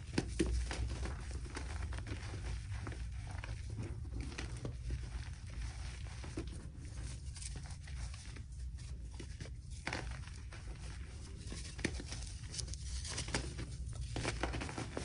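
Hands squeezing and crushing soft gym-chalk blocks coated in cornstarch and holi powder: a steady stream of soft crunches and crumbling, with a few sharper cracks about ten seconds in and near the end.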